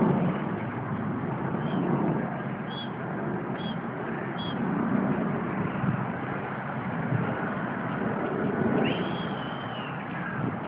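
Steady low background rumble, with thin high peeps from mute swan cygnets: four short peeps in the first half and one longer peep that rises and falls near the end.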